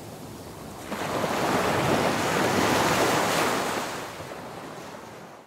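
Sea waves washing in, the rush of water swelling for a couple of seconds and then fading out near the end.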